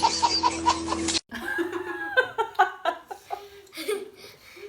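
Rhythmic laughter, about five pulses a second over a steady hum, that cuts off abruptly about a second in, followed by people laughing and talking.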